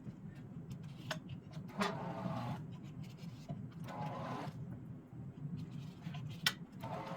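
Small motor running steadily while welding wire is wound onto a spool, with a whine that swells every two to three seconds and a few sharp clicks.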